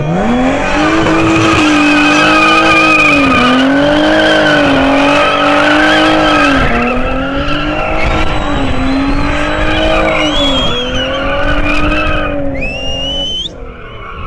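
BMW E36 coupe doing donuts: the engine is held high in the revs, rising and dipping about every second and a half as the rear tyres squeal continuously on the asphalt. A rising squeal comes near the end, then the sound drops away.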